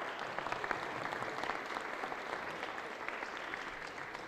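A roomful of people applauding, many hands clapping together; the clapping thins out near the end.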